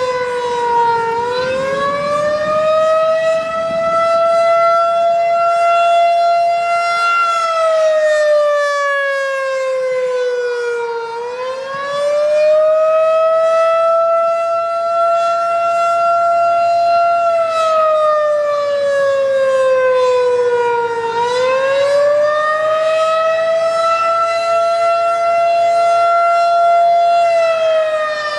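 Federal Signal 2001 DC outdoor warning siren sounding the attack signal. Its pitch rises, holds high for several seconds, then slides down, in repeated wails about ten seconds apart, three cycles in all.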